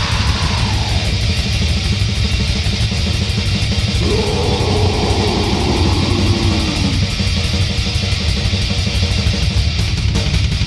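Lo-fi death/grindcore demo recording: heavily distorted guitars, bass and fast drumming in a loud, dense wall of sound. A higher note bends up and down about four to seven seconds in.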